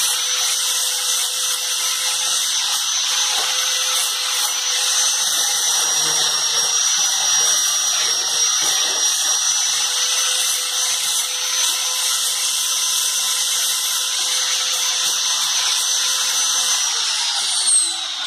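An electric power tool's motor running steadily at high speed with a high whine, then released and spinning down with falling pitch about 17 seconds in.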